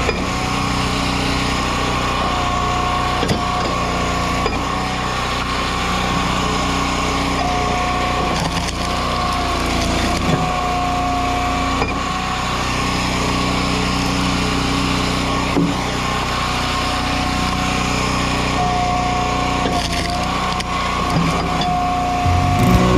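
Engine-driven hydraulic log splitter running steadily, with a higher whine that comes and goes several times as logs are pushed through the wedge, and a few sharp cracks of wood splitting.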